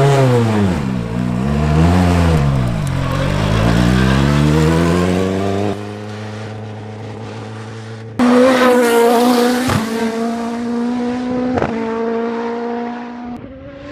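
Turbocharged Toyota 4A-GE four-cylinder in a Formula Atlantic race car, revved up and down several times, then held at high revs with two brief dips in the note.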